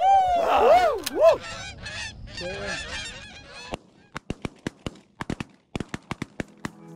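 A flock of Canada geese honking as they fly over, loudest in the first second and thinning out over the next few seconds before cutting off abruptly. After that there is a scattering of faint, sharp clicks.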